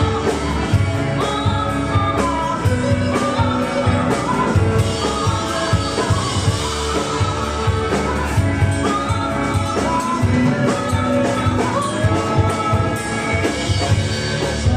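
Rock song with a singer over a band, the drums keeping a steady beat.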